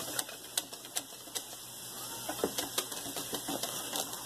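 Wire whisk beating pudding in a stainless steel bowl, its wires clicking irregularly against the metal.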